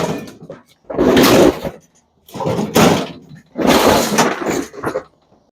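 Loud crashes of scrap appliance metal being handled, about one every second and a quarter, four in all.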